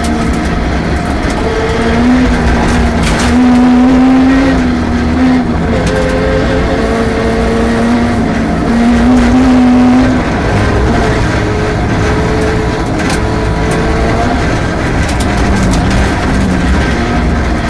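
Rally car engine running hard through a special stage. Its pitch climbs and drops several times, with the loudest stretches a few seconds in and again around the middle.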